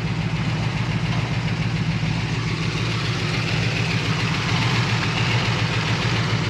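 Chevrolet 350 small-block V8 with headers and dual exhaust idling steadily.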